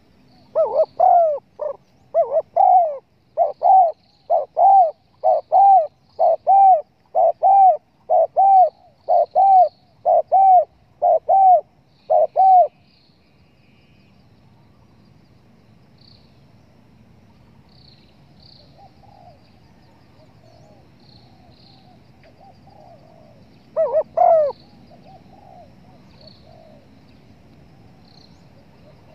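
Spotted dove (tekukur) cooing, as in a hunter's lure call. A fast, loud run of repeated coos lasts about twelve seconds. Then come a lull with fainter coos and a brief pair of loud coos near the end. Faint high chirps of small birds sound throughout.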